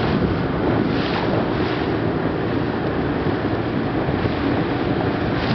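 Steady rushing wind on the microphone over the wash of the sea, even throughout with no distinct strokes or tones.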